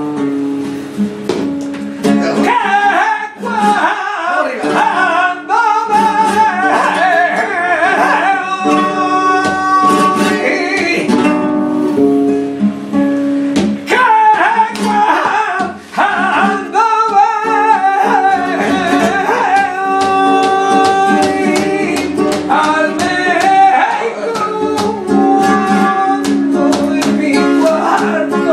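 A man singing a flamenco seguiriya in long, wavering sung lines, accompanied by a flamenco guitar with plucked notes and strummed chords.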